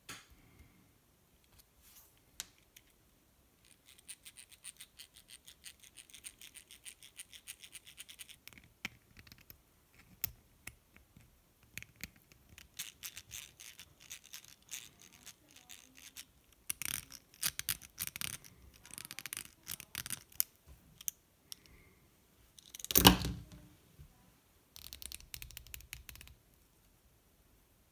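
Gears inside a small metal RC crawler front axle clicking as the axle is turned by hand, first a fast even run of small clicks, then denser irregular clicking and rattling, with one louder scrape about 23 seconds in.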